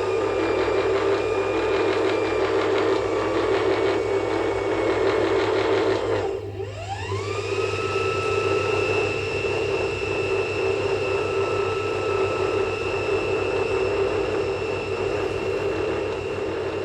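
Steady machine-like droning noise with a low hum and high whining tones. About six seconds in, it briefly dips and a tone sweeps upward, then settles and holds.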